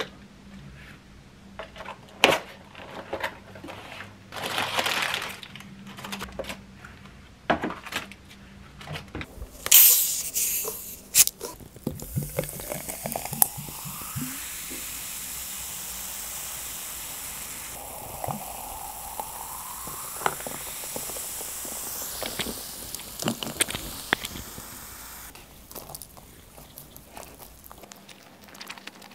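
Takeout boxes and wrapping handled with scattered clicks and rustles, then fizzy soda poured from a plastic bottle into a glass: a steady fizzing hiss for over ten seconds with a pouring tone that rises in pitch twice as the glass fills.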